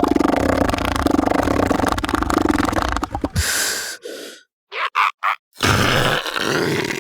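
Southern elephant seal vocalisations: a long, low, rattling bellow lasting about three seconds, then a short breathy hiss, three short higher-pitched cries about five seconds in, and another harsh call near the end, each cut off abruptly.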